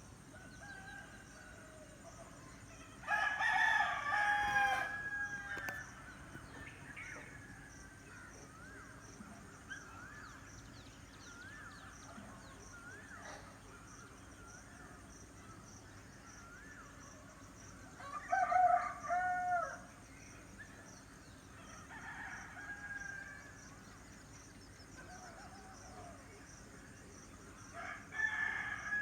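Rooster crowing four times, loudest about three seconds in and again past the middle. Small birds chirp repeatedly in between.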